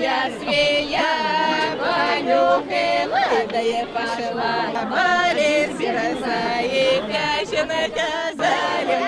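A group of voices singing a song together in chorus, with long held notes.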